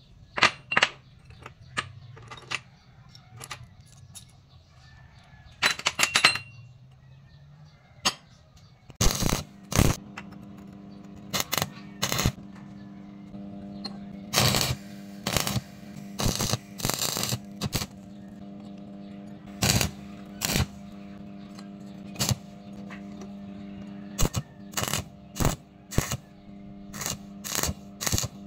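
Square steel tube pieces clinking and knocking on a steel welding table, then, about nine seconds in, a steady electrical hum from the welding set starts and is broken by many short bursts of arc-welding crackle as the electrode strikes and tack-welds the tube.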